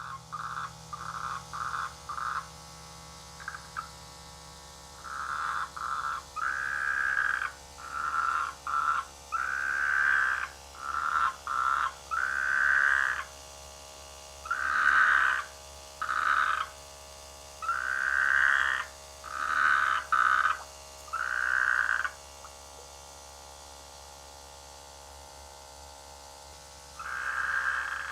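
Frogs croaking their breeding calls: a quick series of short calls, then a run of longer calls about half a second to a second each. After a pause of several seconds there is one more call near the end.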